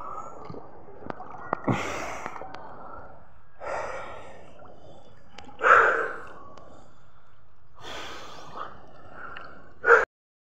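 A swimmer at the water's surface breathing heavily, one loud rushing breath about every two seconds, over a low wash of water against the microphone with a few small ticks and splashes.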